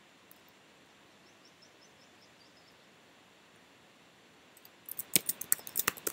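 Computer keyboard keys clicking in a quick run of about ten keystrokes near the end, over a faint steady hiss.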